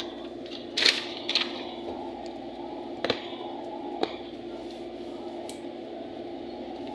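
Steady background hum in a small room, with a few short clicks and rustles of the phone and paper being handled, the loudest about a second in and others around three and four seconds.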